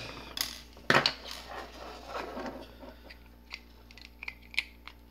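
Hands handling small plastic solenoid-coil wiring connectors and their wires: a sharp plastic knock about a second in, some rustling, then a few light clicks near the end.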